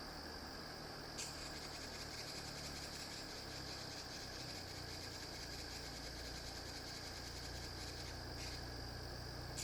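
Steady, high-pitched insect trilling, a fast pulsing buzz that does not stop, over a low steady hum. A sharp click comes about a second in and a fainter one near the end.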